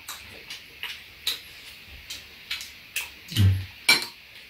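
Eating sounds: a metal spoon and chopsticks clicking against ceramic bowls of stew, about one tap every half second. A louder eating noise from the mouth comes about three and a half seconds in.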